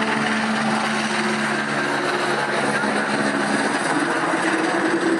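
Steady engine drone with a low hum that wavers slightly in pitch, with no break.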